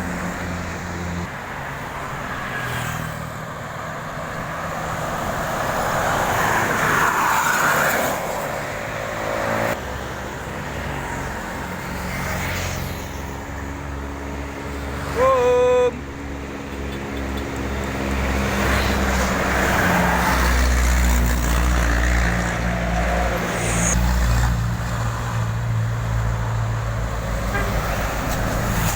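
Road traffic with buses passing, diesel engines running and tyres on the road, rising as each vehicle goes by. Halfway through, a bus horn sounds once for about a second, and this is the loudest sound.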